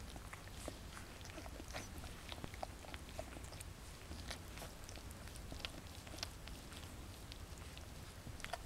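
Welsh springer spaniel bitch licking her newborn puppies as they nurse: many soft, wet clicks and smacks of tongue and mouths.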